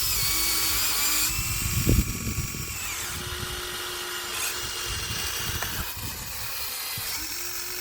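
Small electric motors of a Huina 1593 RC excavator whining through their gearboxes as the arm, bucket and turntable move, starting and stopping with small rises and falls in pitch. A short louder burst of noise about two seconds in.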